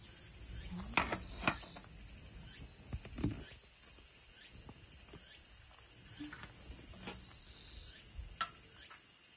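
Steady high-pitched insect chorus, with a few sharp taps about a second in, around three seconds in and near the end.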